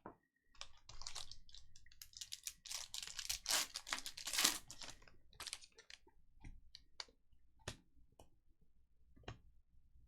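Plastic wrapper of a trading-card pack being torn open and crinkled, then cards handled with scattered soft clicks.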